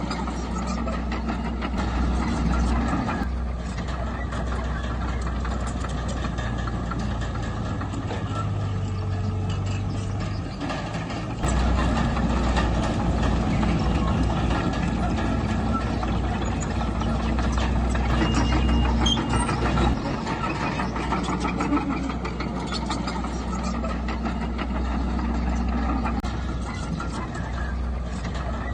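Heavy diesel earthmoving machine engine running steadily, growing louder about a third of the way in and easing back about two-thirds through as the load changes.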